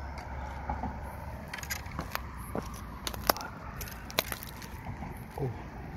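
Handling noise close to the microphone: scattered sharp clicks and scrapes over a low rumble while a Chinese mitten crab that will not let go is worked loose from netting by hand. One click about three seconds in is louder than the rest.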